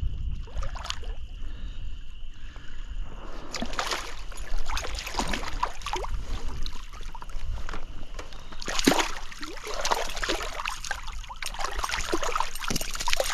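Hooked brown trout splashing and thrashing at the surface of a stream as it is played in, with water sloshing. The splashing comes in two bouts, about four seconds in and again from about nine seconds in, over a steady low rumble.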